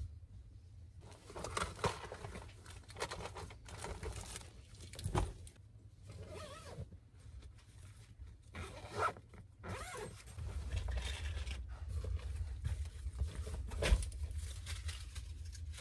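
Packing a backpack: a bag zipper being pulled in short runs, with fabric and bags rustling and scraping, and a sharp knock about five seconds in and another near the end, over a low steady hum.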